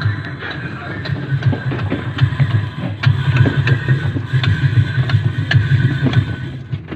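Automatic washing machine running with a loud low hum and irregular knocking and rattling, the abnormal noise of a faulty machine.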